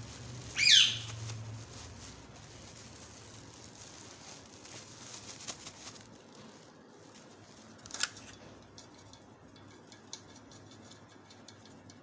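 Barley flour being rubbed by hand through a mesh sieve into an aluminium pot: a soft, steady rustle with faint scratchy ticks in the second half. About half a second in, a bird gives one short, loud high chirp, the loudest sound, and a shorter chirp comes about eight seconds in.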